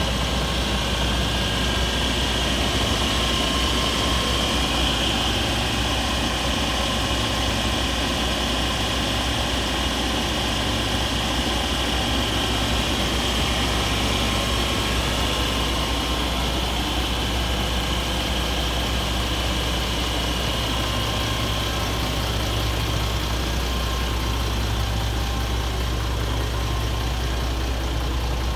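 2010 Freightliner armored truck's diesel engine idling steadily, a constant low hum with a steady high whine above it.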